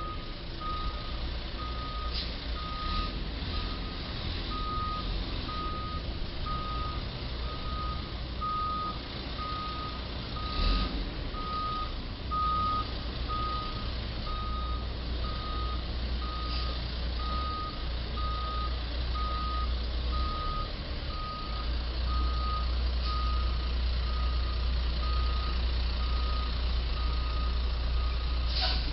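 Box truck's reversing alarm beeping about once a second, one steady tone per beep, as the truck backs up. A low engine and traffic rumble runs underneath.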